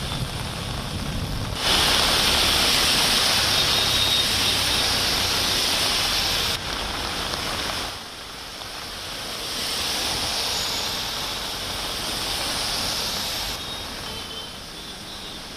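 Heavy rain pouring down, a dense steady hiss whose loudness changes abruptly several times.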